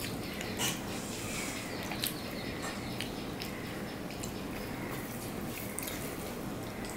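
Eating by hand from a stainless steel plate: fingers mixing rice and curry, with a few short clicks against the plate and soft mouth sounds of chewing, over a steady hiss.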